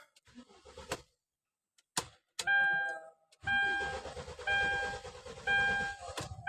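Hyundai engine being cranked by the starter for about three seconds without catching, after two clicks of the key. This is the hard-start fault the mechanic is chasing. A dashboard warning chime dings about once a second throughout.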